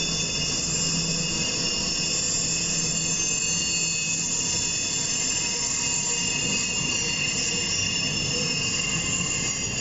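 Freight train wheels squealing steadily against the rails as a Norfolk Southern diesel and its maintenance-of-way camp cars round a tight curve, with the rumble of the passing train underneath. The squeal is the wheel flanges grinding on the curve.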